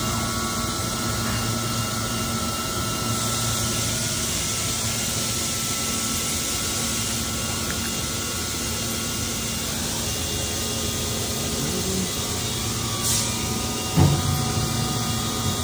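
Kitamura MyCenter HX400iF horizontal machining center running a program: a steady mechanical hum with several steady tones, under a hiss of coolant spraying inside the enclosure. Near the end there is a brief louder low thump.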